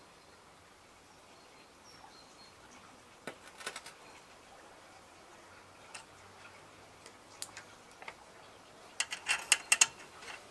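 Small sharp clicks and taps of metal parts being handled at a Wilesco D5 model steam engine's boiler, ending about nine seconds in with a quick run of loud clicks as the safety valve is fitted back onto its filler opening.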